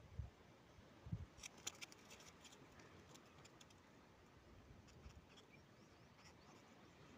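Near silence, broken by faint small clicks and rustles of hands handling fishing line and hook. Most of the ticks come in a cluster between about one and a half and four seconds in.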